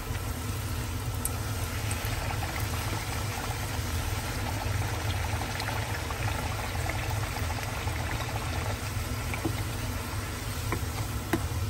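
Hot oil sizzling and bubbling steadily around a puri deep-frying in a pan, with a few faint clicks of the spatula against the pan and a low steady hum underneath.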